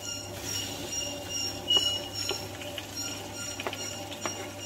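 Wooden spatula scraping sliced tomatoes off a plastic chopping board into an aluminium cooking pot: a handful of light, scattered taps and scrapes as the slices drop in.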